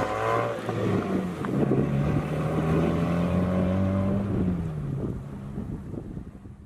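A low, steady drone with a pitch dip about four and a half seconds in, fading out toward the end.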